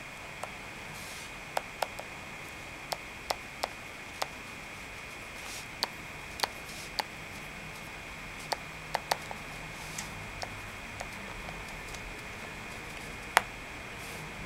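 Stylus tip tapping and clicking on a netbook-tablet touchscreen during handwriting: irregular sharp ticks, sometimes two or three close together, the loudest near the end, over a steady high-pitched whine.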